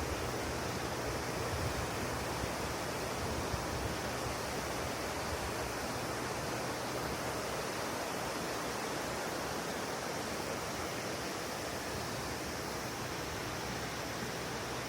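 River water rushing steadily, an even unbroken wash of noise with no separate events.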